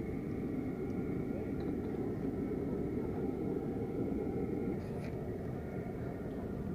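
A steady low background rumble with a faint steady hum above it, from distant machinery or engines; a faint click about five seconds in.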